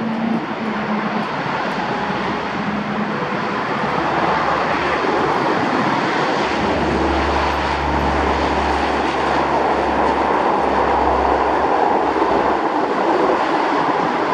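Lockheed C-130 Hercules four-engine turboprop running at power as it rolls along the runway. The engine noise swells over the first few seconds and then holds steady and loud.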